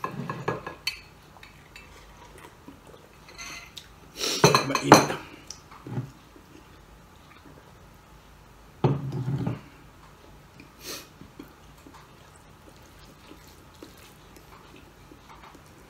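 Metal spoon and fork clinking and scraping against a ceramic dinner plate during a meal. The sound comes in a few short bouts, the loudest about four to five seconds in.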